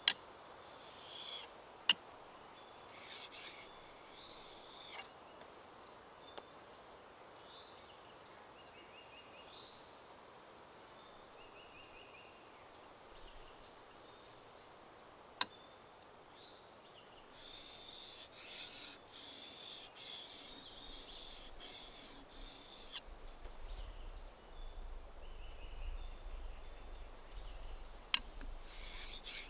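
Hand tool working a wooden timber: rasping strokes about one a second that start a little past the middle and pick up again near the end. Before them, a few sharp knocks and small birds chirping.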